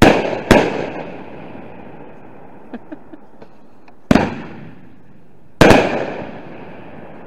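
Fireworks bursting: four loud bangs, two half a second apart at the start, then two more about four and five and a half seconds in, each fading away in a rolling echo.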